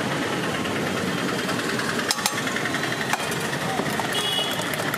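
Busy roadside street noise: vehicle engines running and indistinct voices, with a few sharp clicks about two and three seconds in.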